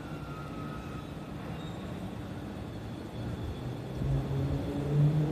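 Electric commuter train at a station: a steady low rumble that swells, about four seconds in, into a louder low drone that steps slightly up in pitch.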